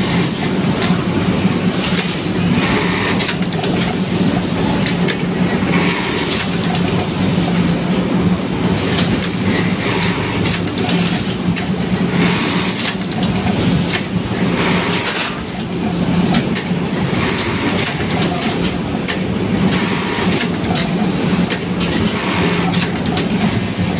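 Juki electronic button-sewing machine with a SAKHO BK-17 automatic button feeder running: a steady hum with continuous mechanical clatter, and a short high hiss repeating every two to three seconds.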